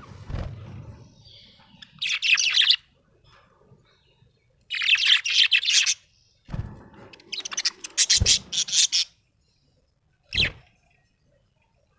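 Budgerigar chirping in short bursts of rapid, high warbling chatter, three longer runs and one brief chirp near the end.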